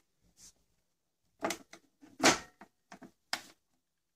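Smoked plastic dome lid of a Philips Radiola 'Pompon' record player being lowered and shut onto its base: a run of hard plastic clicks and knocks, the loudest a little over two seconds in.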